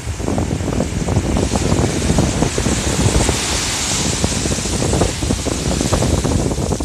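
Ocean surf: a wave breaks and its foaming whitewater washes up the beach. The hiss swells to its loudest about three to four seconds in. Wind buffets the microphone with a low rumble throughout.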